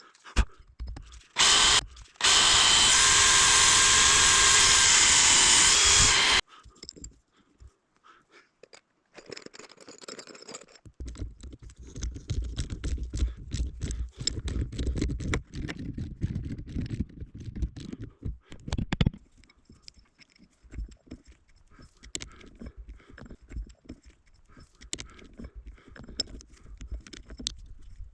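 A handheld power drill runs steadily at one pitch for about four seconds, then stops abruptly. Later come scattered clicks, knocks and low rumbling handling noise.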